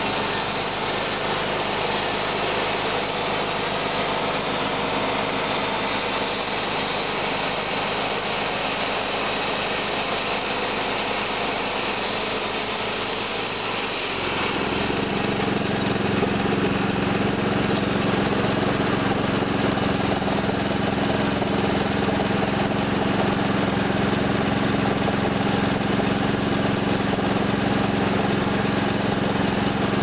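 Wood-Mizer portable band sawmill running, its engine driving the band blade as it saws a log into boards. About halfway through the engine note changes and gets a little louder, then holds steady.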